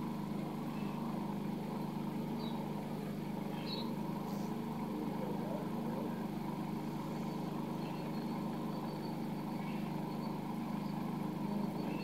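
Electric fan running with a steady, even whirring hum. A few faint, short, high chirps sound in the first half.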